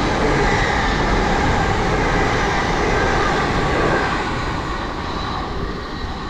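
Lumo Class 803 electric train passing at speed: a steady rush of wheel and air noise with a faint whine over it, easing off about four seconds in.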